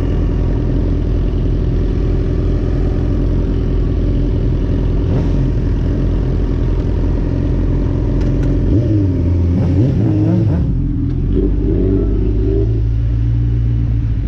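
Engine of a moving motor vehicle running steadily, with a shift in the engine note about nine seconds in, after which it settles to a steady lower hum.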